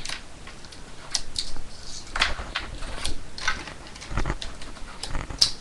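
Fingerboard being ridden over a tabletop rail: an irregular series of sharp clicks and taps as the tail pops and the board and its trucks hit the rail, with short scrapes as it slides along it. One sharp click comes near the end.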